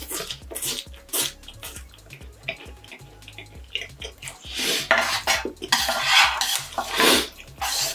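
Wooden spoon and wooden chopsticks stirring and lifting sticky, saucy instant noodles in a black frying pan: scraping and clattering, loudest through the second half. Before that come soft clicks of chewing.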